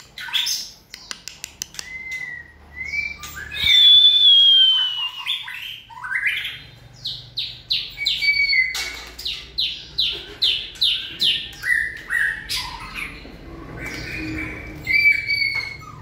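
White-rumped shama singing a varied song of clear whistles and harsh notes. A loud falling whistle comes about four seconds in, then a quick run of short repeated notes, about two a second.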